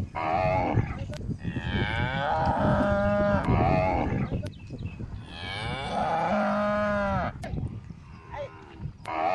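Cattle mooing: two long, drawn-out moos in the middle, with shorter calls near the start and the end.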